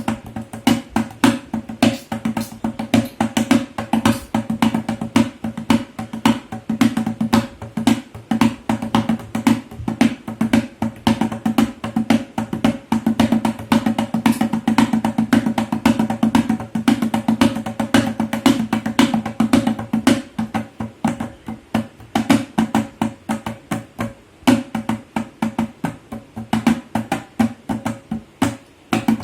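Tabla playing a fast, steady run of strokes, several a second, with the drums' tuned pitch ringing under the strikes.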